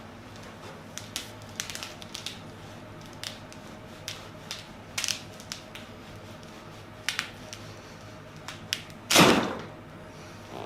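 Scattered light clicks and handling noises from people moving on a chiropractic treatment table, then one loud thud about nine seconds in.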